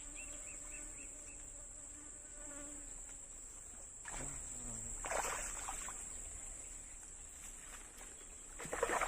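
Insects droning with a steady high-pitched buzz, with a short burst of noise about five seconds in and louder noise starting near the end.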